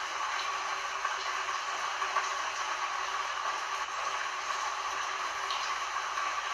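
Heavy rain falling in a steady hiss, with faint scattered patter and no rumble of thunder.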